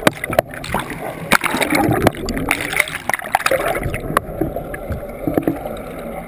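Water gurgling and rushing around a submerged action camera, with frequent sharp clicks and knocks as the camera is moved through the water.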